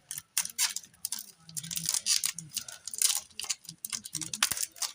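Handling of a newly opened CD case and its plastic packaging: irregular clicks, taps and crinkling rustles.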